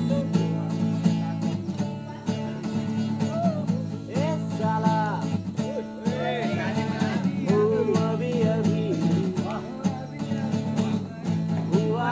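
Acoustic guitar strummed in steady chords, with voices singing along from about four seconds in.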